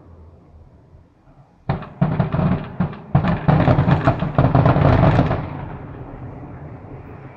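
Fireworks: a fading rumble, then from just under two seconds in a rapid barrage of booming bangs and crackles lasting about three and a half seconds, dying away into a rolling echo.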